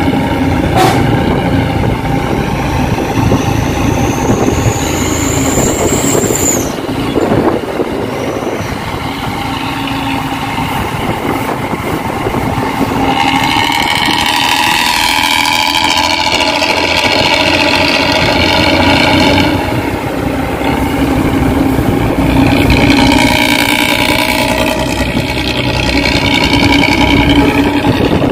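Luragung intercity bus's engine running through its shrill, snoring aftermarket exhaust (knalpot ngorok), the note swelling and falling back twice. A high whistle rises and cuts off about six seconds in.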